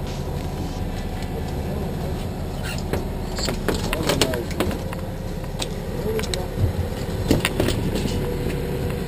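Boat engine running steadily, with scattered clicks and knocks between about three and eight seconds in.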